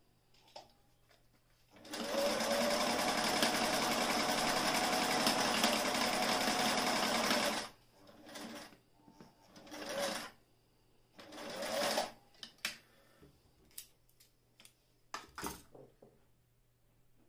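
Singer 457 Stylist sewing machine running steadily at speed for about six seconds, stitching a zigzag seam through fabric, then stopping. After it come several shorter rustling sounds and small clicks as the fabric is pulled free and handled.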